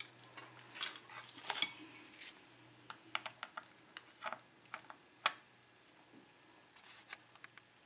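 Small metal objects being handled on a work surface: a scattered run of light clicks and clinks, brightest and ringing a little about one and a half seconds in, with one sharp click about five seconds in.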